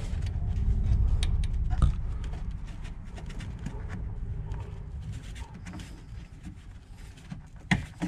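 Low rubbing and handling noise from a hand and arm working inside a water heater's top housing, louder in the first couple of seconds and then fading. A few sharp clicks come through, the loudest near the end.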